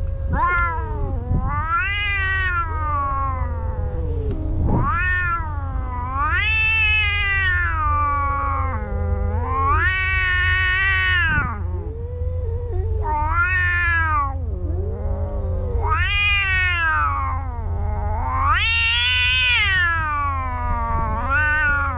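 Cats in a face-to-face standoff yowling at each other: long, wavering wails that rise and fall in pitch, one after another with hardly a gap. This is a territorial confrontation that could turn into a fight.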